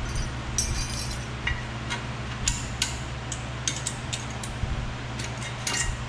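Irregular light metal clinks and scrapes of a small hand tool prying an old brake pad hardware clip out of a rear disc brake caliper bracket.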